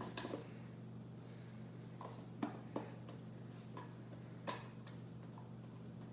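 A few light, scattered taps and clicks of small objects being handled, over a steady low hum.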